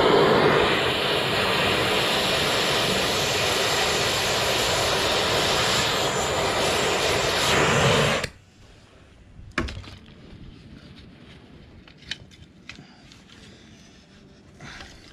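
A long-wand gas torch burning steadily as it heats a chain link red-hot to open it, shut off suddenly about eight seconds in. After that, a few light metal clinks as the hot link is worked with tire-chain spreaders.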